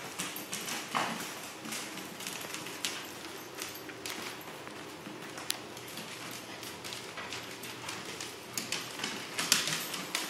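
Corgi puppy running around, his paws and claws making quick, irregular clicks and taps on the floor.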